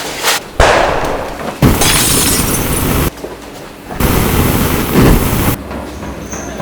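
Glass breaking and shattering as added fight sound effects: a sharp hit about half a second in, then two long crashes of smashing glass, the first running to about three seconds and the second from about four to five and a half seconds.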